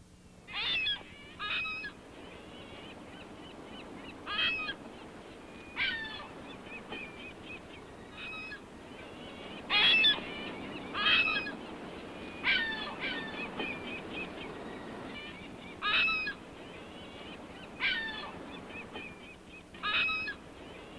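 Short bird-like calls, about a dozen of them, repeated every second or two over a faint steady hiss.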